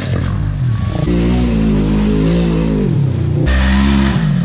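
Off-road vehicle engines, an ATV and a side-by-side, revving hard under load, the pitch climbing and falling. The sound switches abruptly to a different engine about a second in and again about three and a half seconds in.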